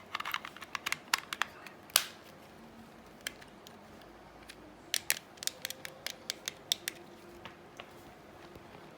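Hard plastic clicking and tapping as a VR headset and its wireless remote are handled: a quick run of clicks, one loud click about two seconds in, a pause, then another run of clicks.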